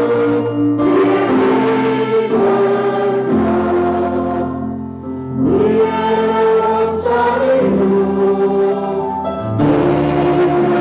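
Voices singing an Afrikaans hymn together in long, held notes. The sound dips briefly about five seconds in, at the break between verses.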